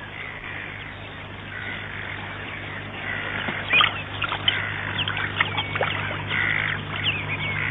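Pied avocets calling: a few soft calls at first, then a quick run of sharp, repeated calls from about halfway through. A steady low hum runs underneath.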